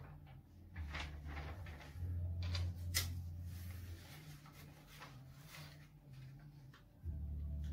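A sheet of paper rustling and creasing as it is handled and folded on a tabletop, in short scattered crackles. A low rumble runs underneath, louder in the middle and again near the end.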